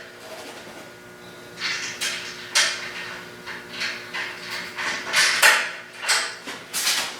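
Metal kart parts and hand tools being handled during chassis assembly: an irregular run of short clanks, scrapes and rattles, about ten in all, over a faint steady hum.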